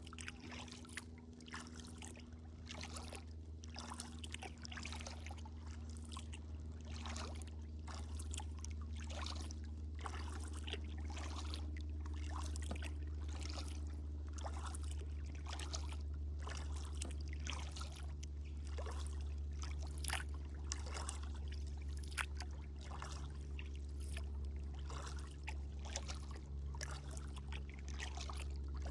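Kayak paddle strokes: water splashing and dripping off the blades in irregular small splashes and trickles, over a steady low hum.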